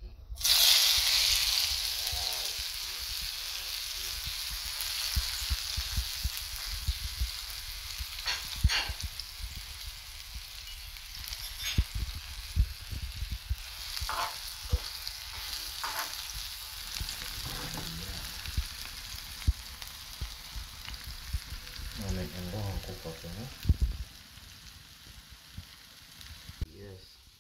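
Chopped onion, tomato, sweet pepper and scallion hitting hot oil in a frying pan: a loud sizzle starts suddenly and then settles to a steady sizzle with occasional clicks. It fades somewhat near the end.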